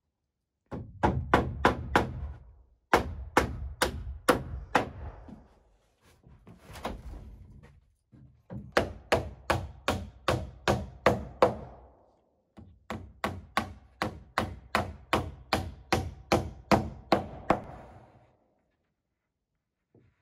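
Hammer driving hand-forged rosebud nails into wooden roof sheeting boards: runs of steady blows, about three a second, broken by short pauses.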